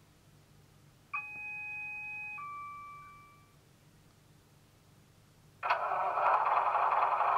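DCC sound decoder in a model CAF Class 4000 DMU playing through small speakers: an electronic chime of several steady tones about a second in, held for about a second and then fading out. Near the end a dense diesel-engine start-up sound comes in suddenly and keeps running.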